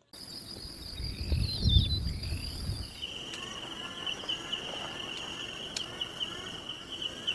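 Insects trilling in a forest: a steady high buzz that gives way about three seconds in to a lower, pulsing trill. A low rumble comes and goes in the first few seconds.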